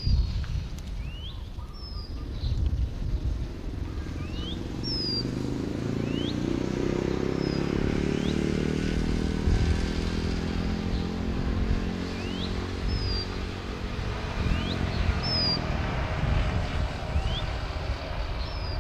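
A CSR SDA4 diesel-electric locomotive's engine hums low as it shunts, growing louder from about four seconds in and easing off near the end. A bird repeats a short rising chirp every second or two.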